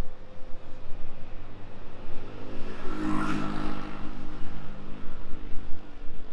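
A motor vehicle passes close by on the road. Its engine and tyres build to a peak about three seconds in and then fade, over a steady low traffic rumble.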